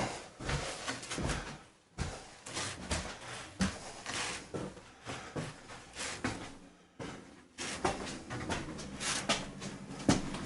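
Irregular wooden knocks, creaks and rubbing on particle board flooring laid over attic beams, with short scraping rustles between the knocks.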